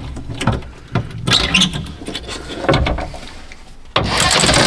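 Clunks and scrapes of a metal cab floor plate being handled and lifted out. About four seconds in, a cordless ratchet starts running, a steady whirr as it drives a bolt of the HVAC filter cover.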